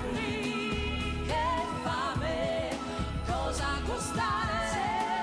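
Italian pop song: a woman singing a wavering, held melody over a band with bass and drums.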